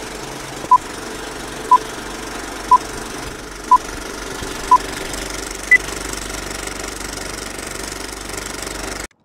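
Film-leader countdown sound effect: a short beep once a second, five times, then a single higher beep, over the steady clatter of a running film projector that cuts off suddenly near the end.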